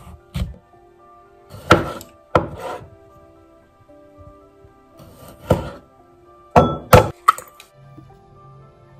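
Kitchen knife cutting through an avocado and cherry tomatoes on a wooden cutting board: several sharp knocks of the blade against the board, over soft background music.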